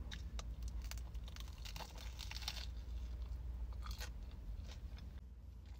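Biting into a bagel sandwich and chewing it, with soft, faint crunches of the crust. A low steady hum lies underneath.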